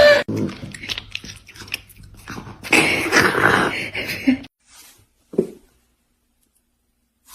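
Chewing and crunching: a run of quick clicks and crunches for about four seconds, then a single short sound about five seconds in.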